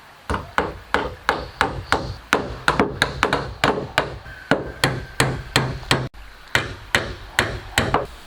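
Hammer blows struck in a fast, even rhythm of about three a second, with a brief pause about six seconds in.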